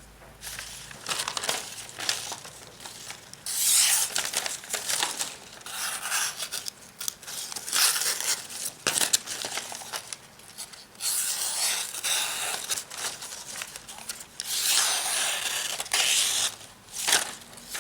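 Knife blade slicing through paper in a sharpness test: a run of irregular tearing and rustling strokes with small clicks and scrapes, some short and some over a second long.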